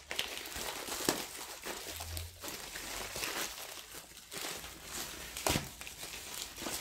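Plastic courier mailer and bubble wrap crinkling and rustling as a parcel is opened by hand, with sharp crackles throughout, the loudest about a second in and again after about five seconds.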